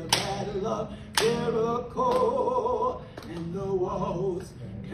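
A woman singing a gospel song unaccompanied, holding long wavering notes, with sharp hand claps about once a second keeping time.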